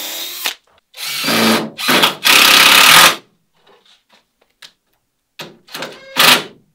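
Cordless drill driving screws to fasten a wooden ribband to the boat's molds. One run stops about half a second in, then comes a series of short bursts, the longest and loudest about two to three seconds in, with a few more short bursts near the end.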